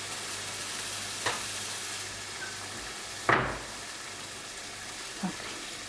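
Hot caramelised sugar sizzling with a steady hiss in a saucepan after a glass of water has been poured onto it, the water boiling off the hot caramel. A sudden loud sharp sound about three seconds in fades over half a second, with a fainter click earlier.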